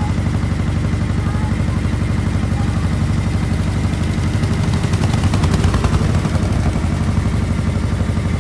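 A small tour boat's engine runs steadily with a rapid chugging beat. It gets clattery and a little louder near the middle as another tour boat passes close.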